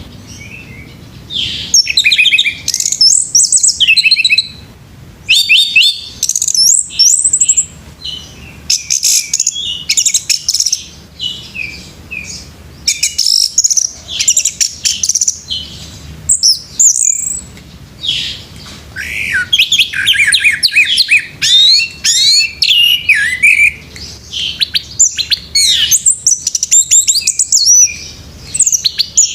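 Orange-headed thrush (anis merah) singing a rapid, varied song of high whistled and chattering phrases, delivered in loud bursts with brief pauses between them.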